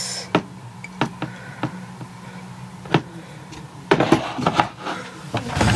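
Scattered small clicks and knocks of things being handled at close range, a cluster of them about four seconds in, over a steady low hum.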